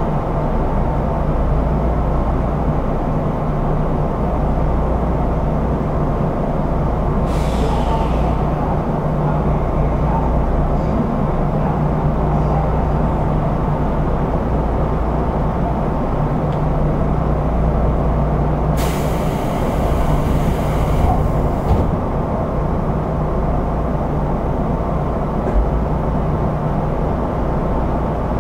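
Odakyu 1000 series electric train with a steady low hum from its equipment. Compressed air hisses briefly about a quarter of the way in, and again for about three seconds past the middle.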